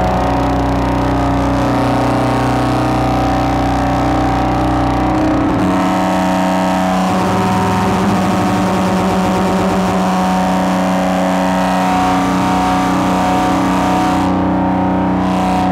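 Metasonix Wretch Machine vacuum-tube synthesizer playing a loud, distorted drone of several held tones over a noisy haze, its sound shifting as its knobs are turned. A deep low rumble drops out about five seconds in, and a wavering sweep follows a couple of seconds later.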